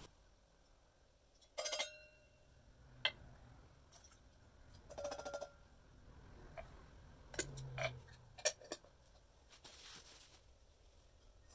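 Small metal cans of wood stain being handled while two stains are mixed into one can: scattered light metallic clicks and clinks, a few with a brief ring, in small clusters.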